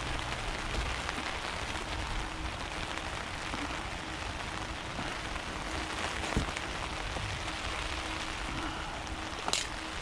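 Steady, even hiss of rain falling, with a low rumble underneath and one sharp click near the end.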